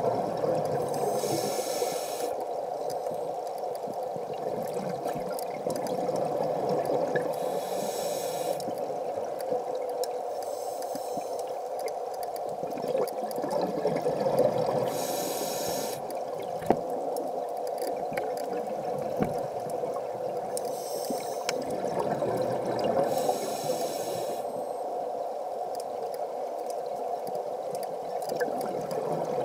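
Scuba diver breathing through a regulator underwater: a rush of exhaled bubbles comes in a burst of a second or two every few seconds, over a steady underwater hum.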